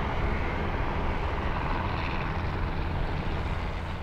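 Propeller engines of two biplanes flying low in formation, a steady engine drone with a strong low rumble.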